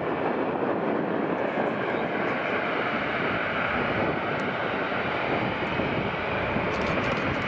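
Steady jet engine noise from a Delta Boeing 737 taxiing onto the runway, its twin CFM56 turbofans running at low taxi thrust. It is recorded through a camcorder's built-in microphone.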